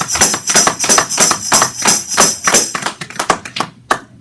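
Tambourine beaten in a quick, even rhythm, its jingles ringing bright. The strokes thin out and fade over the last second or so.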